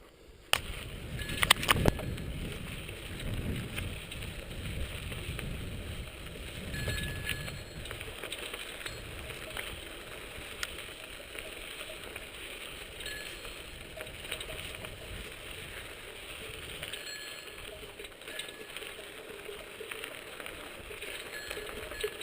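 Bicycle being ridden on a dirt track: tyres rolling on the rough ground while the bike rattles. There are several loud knocks from bumps in the first couple of seconds.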